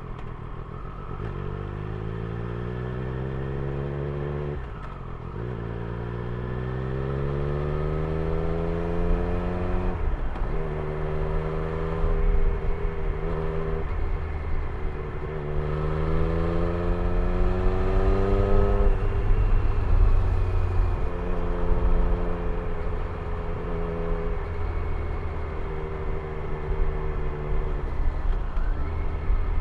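Triumph Street Triple 765's three-cylinder engine accelerating up through the gears: its pitch climbs, drops back at each shift and climbs again several times. In the last ten seconds it runs at steadier revs.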